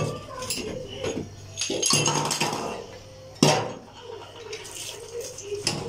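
Scrubbing a gas stovetop with a soapy sponge, with metal clinks and knocks as the burner caps and stovetop are handled; the loudest is a sharp knock about three and a half seconds in.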